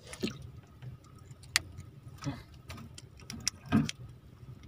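Scattered small clicks, taps and knocks from hands handling hand-line fishing gear in a wooden boat, with a sharp click about a second and a half in and the loudest thump near the end, over a low steady hum.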